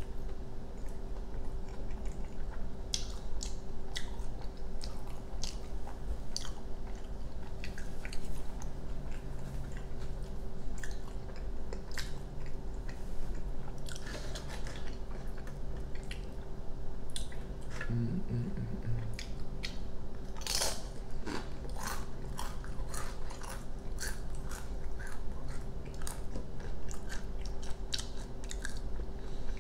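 Close-up chewing and biting of a burrito: a steady run of short, wet mouth clicks, with one louder crunchy bite about twenty seconds in.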